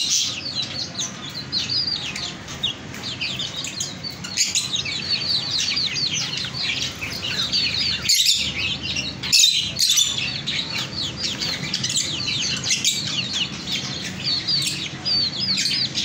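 Many small birds chirping at once: a dense, continuous twitter of short, high chirps that often slide downward.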